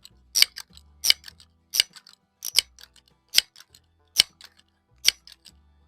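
Crosman 1322 multi-pump air carbine being pumped: eight sharp metallic clacks of the pump lever at an even pace, about one every three quarters of a second, each followed by a lighter click.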